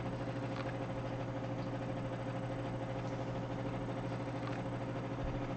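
Steady low hum with a fainter, higher steady tone above it: background room or equipment hum.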